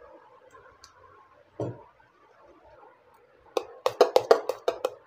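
A metal palette knife clicks rapidly against a stainless steel bowl of whipped cream, about six clicks a second, starting a little past halfway: yellow colouring being mixed into the cream. A single dull knock comes earlier.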